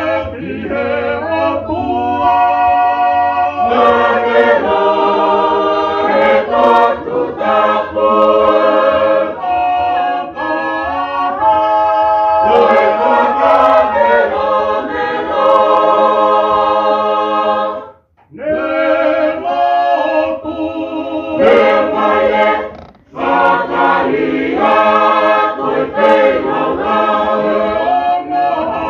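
Tongan church choir singing a hymn a cappella in held, many-voiced chords, with brief breaks between phrases about 18 and 23 seconds in.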